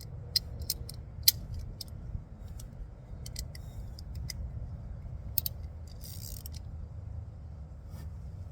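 Metal hand tools, a wrench and its socket extension, clicking and clinking irregularly as they are handled and fitted together, over a steady low rumble.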